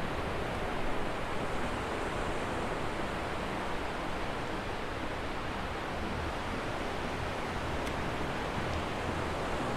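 Steady rushing noise of surf washing onto a beach.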